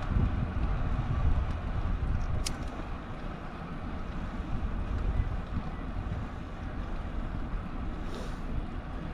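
Wind buffeting the microphone of a camera on a moving bicycle, a steady low rumble that eases slightly after a sharp click about two and a half seconds in.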